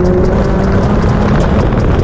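Mazdaspeed 3's turbocharged four-cylinder engine pulling as the car drives, its note rising slightly, under heavy wind and road noise on a microphone mounted outside by the front wheel.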